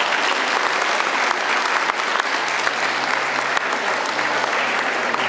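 Audience applauding steadily in a large hall, a dense patter of many hands clapping.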